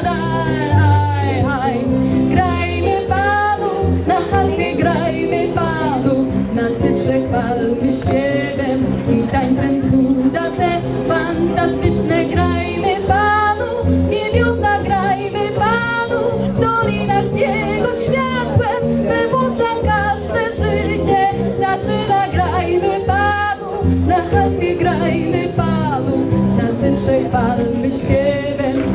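A woman singing into a microphone over instrumental accompaniment, her voice wavering with vibrato above steady backing notes.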